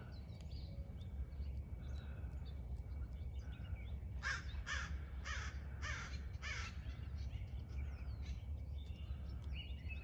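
A bird's harsh cawing calls, five in quick succession about two a second, starting about four seconds in, over a low steady background rumble.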